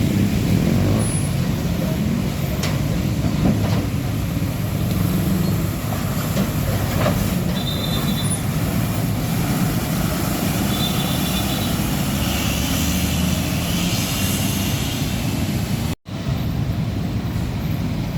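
Heavy diesel trucks and road traffic running past in a steady low rumble, with brief high squeaks about eight and eleven seconds in. The sound cuts out for an instant about sixteen seconds in.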